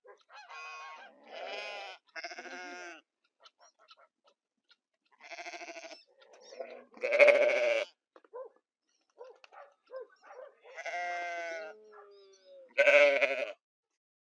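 Goats and sheep of a mixed farm flock bleating, about seven wavering bleats with short gaps between them; the loudest come a little past halfway and near the end.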